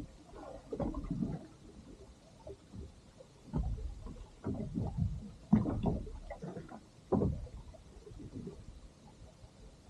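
Water lapping and slapping against the inflatable tubes of a drifting rigid inflatable boat, in irregular low sloshes and knocks, the strongest a little past halfway.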